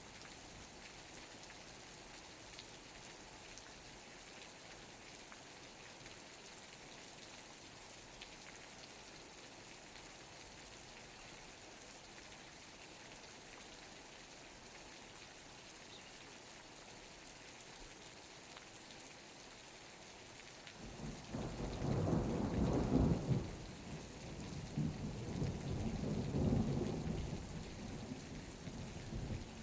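Steady rain falling, an even hiss. About two-thirds of the way through, a thunder rumble rolls in, swelling twice over several seconds before fading.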